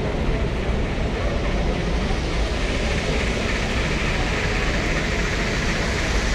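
Model steam train with freight and passenger cars running past on the layout track, a steady rolling rumble and hiss that grows louder a couple of seconds in as the train comes close, over the steady background noise of a busy exhibition hall.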